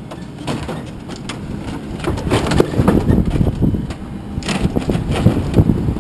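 Scrap metal being unloaded: irregular clanking, banging and crunching over a low rumble, louder from about two seconds in.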